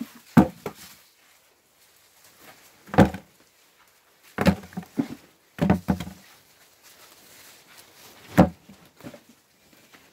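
Freshly picked cucumbers dropped into a plastic bucket, each landing as a short thud, several times at irregular intervals of a second or more, with faint rustling of the vines in between.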